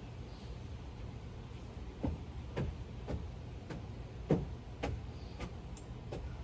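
Footsteps at an even walking pace, a little under two a second, starting about two seconds in, over a steady low hum.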